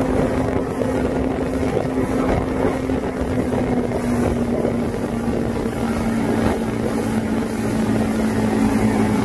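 Outboard motor running steadily at speed, pulling a towed tube, with the rush of water and spray around the hull. Its tone dips slightly about four seconds in.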